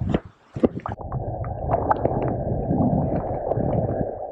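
Splashing as a hand and camera dip into a shallow river, then the dull, muffled rumble and gurgle of river water heard with the camera underwater.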